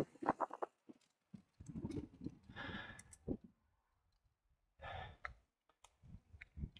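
Mountain bike descending a dirt trail, picked up by a camera mounted on the bike or rider: intermittent bursts of tyre rumble and rattle with scattered sharp clicks, broken by short gaps of near silence.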